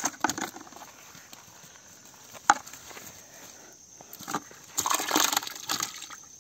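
A sharp click about two and a half seconds in, then a cast net splashing down onto the pond water for about a second near the end.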